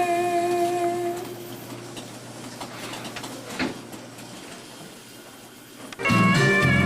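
The final held note of a recorded pop-country song fades out, followed by a few seconds of faint background noise with a single knock. About six seconds in, the next song starts loudly with a full band and guitar.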